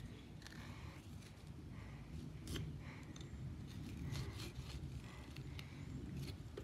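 Faint scratchy rasping of a small plastic pumpkin-carving saw working through pumpkin rind, with a light click about two and a half seconds in.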